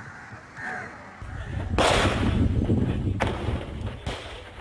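Combat sound: a low rumble, then a loud blast about two seconds in, followed by a few more sharp bangs of gunfire and explosions.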